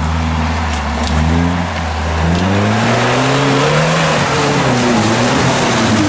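Off-road 4x4 engine revving hard, its pitch climbing, dropping back and climbing again, as the vehicle churns through deep mud with a growing rush of spinning tyres and splashing mud and water.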